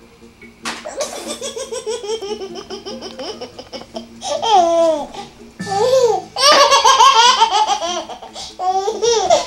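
A six-month-old baby girl's belly laughs: repeated runs of rapid laughs with a few higher gliding squeals between them. The loudest run comes about two-thirds of the way in.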